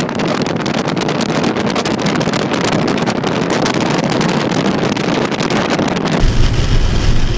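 Wind buffeting the microphone from a car driving at speed, a loud, rough rushing noise. About six seconds in it cuts abruptly to a deeper, steady road-and-engine rumble from inside the moving vehicle.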